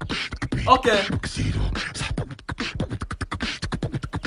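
A fast run of mouth clicks and pops in beatbox-style vocal percussion, broken by a short spoken 'okay' about a second in.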